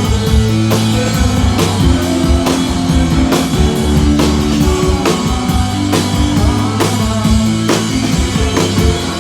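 Live rock band playing a song: a drum kit keeps a steady beat under loud amplified chords and a held bass line.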